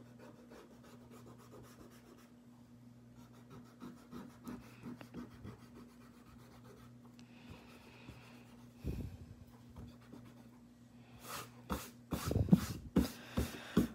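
Rubber eraser scrubbing back and forth over drawing paper, rubbing out pencil lines in quick repeated strokes. Near the end, a louder sweeping rub as a hand brushes the eraser crumbs off the sheet.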